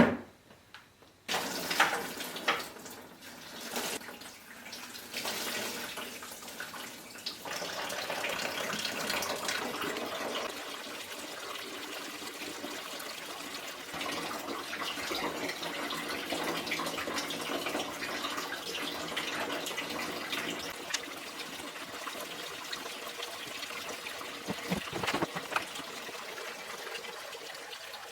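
Engine coolant draining from a radiator through its opened drain plug: a few knocks at first, then a steady stream of liquid pouring out.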